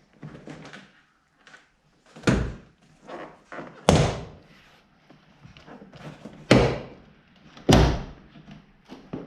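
Door card retaining clips on a BMW F20 door popping loose as the trim panel is pried and pulled away from the door: four loud sharp knocks a second or two apart, with smaller plastic scrapes and taps between them.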